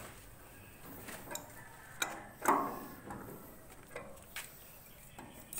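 Wrench working a nut onto a bolt on a concrete mixer drum: irregular metal clicks and clinks, with a louder clank about two and a half seconds in.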